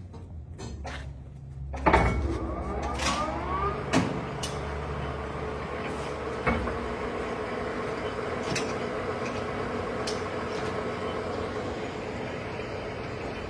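Sharp 3580M gap-bed engine lathe's spindle starting up at 310 RPM: a sudden start about two seconds in with a rising whine as it comes up to speed, then steady running with a constant whine. A few sharp knocks come through while it runs.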